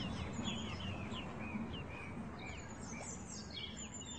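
Outdoor ambience of songbirds chirping: many short, quick chirps and whistles over a low steady rumble, growing a little fainter toward the end.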